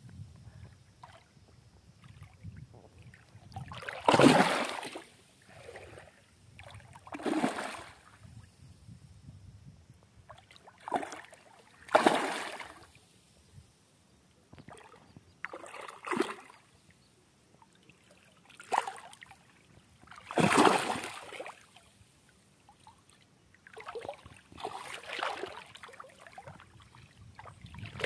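Hooked rohu thrashing at the surface of shallow water: a series of short splashes every few seconds, the loudest about four seconds in and again past the twenty-second mark.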